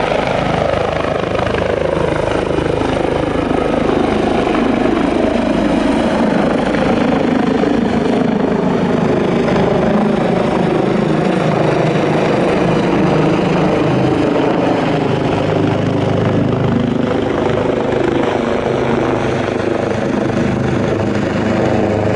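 Airbus H145 helicopter lifting off and climbing overhead: the main rotor, twin turboshaft engines and shrouded fenestron tail rotor make a loud, steady helicopter noise. Its tones slide down in pitch over the first few seconds, then hold steady.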